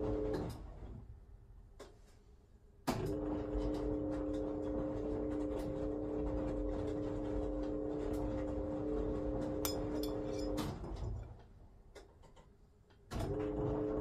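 Wyss Mirella Universal 2000 front-loading washing machine in its wash tumble, running the drum in a stop-start rhythm. The drum motor hums steadily, stops about half a second in, and after a pause of about two and a half seconds restarts with a click. It runs for about eight seconds, stops again, and restarts with a click near the end.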